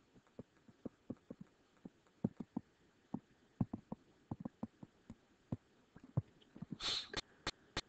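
Stylus tapping and clicking against a pen tablet or touchscreen while words are handwritten: light, irregular clicks a few times a second. A brief hiss near the end.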